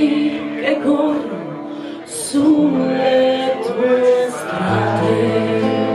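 Live folk band playing: voices singing long held notes over acoustic guitar, with a violin.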